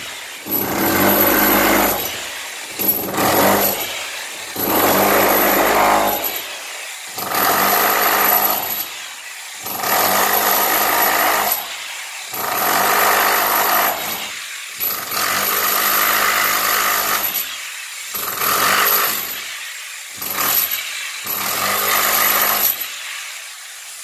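Corded electric rotary hammer pounding into a concrete floor, run in bursts of a second or two with short pauses, about ten times, a thin high motor whine over the hammering while it runs. It is breaking up the floor slab to cut a trench for burying a new water supply pipe.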